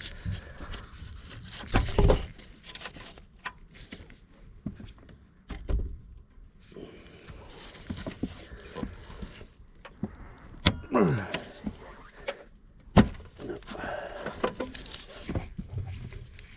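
Mole grips (locking pliers) clinking and knocking against metal as they are fitted and clamped onto a broken battery clamp stud, with irregular clanks and a couple of sharp clicks.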